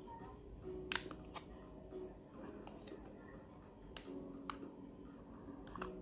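Scattered light clicks and scrapes of small tools working on an iPhone 12 Pro's screen and frame while the screen is pried off.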